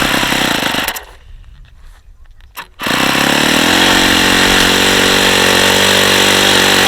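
Saito FA-45 four-stroke glow model-airplane engine running, then cutting out after about a second. Near the three-second mark it fires up again and winds up to a steady high speed. It runs with the rough noise of worn-out bearings, which the owner calls really bad.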